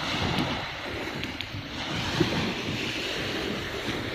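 Sea surf washing onto the beach, a steady rushing, with wind buffeting the microphone.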